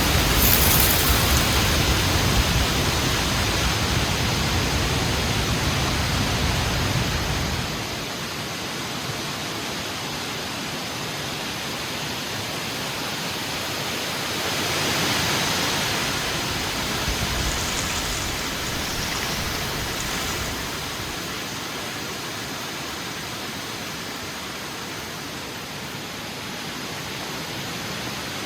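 Heavy wind blowing in a steady rushing noise, with a deep rumble that falls away about eight seconds in and gusts that swell again around the middle.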